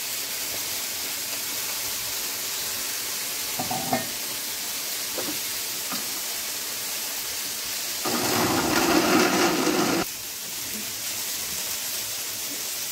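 Countertop blender running for about two seconds, grinding green tomatoes, chiles, garlic and onion with a little water into a green salsa, over a steady sizzle of fava beans frying in a pan. A light knock comes about four seconds in.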